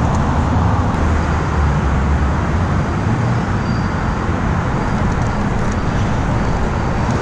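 Steady rumble of road traffic on the overpass overhead, an even wash of noise with no single vehicle standing out.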